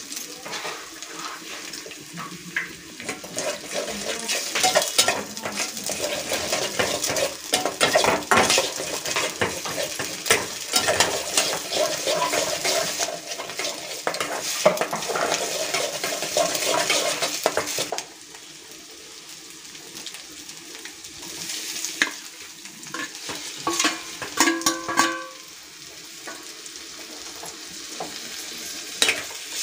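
Spatula scraping and stirring an egg scrambling with onion and tomato in a hot metal kadai, fast strokes over a sizzle. About two-thirds of the way through the stirring stops and it goes quieter, with only scattered clinks and scrapes.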